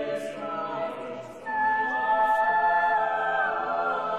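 Soundtrack music: a choir singing long held chords that swell in loudness about a second and a half in.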